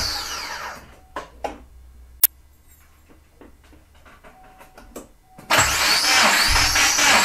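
Subaru EJ251 flat-four cranking on the starter motor for a compression test, with a rhythmic whine that rises with each compression pulse. It dies away about a second in. A few light clicks and one sharp tick follow, then cranking starts again abruptly near the end.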